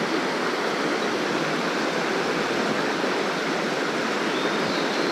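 Mountain stream rushing steadily, running with plenty of water.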